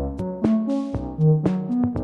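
Background pop music in an instrumental stretch between sung lines: short pitched notes over a steady percussive beat.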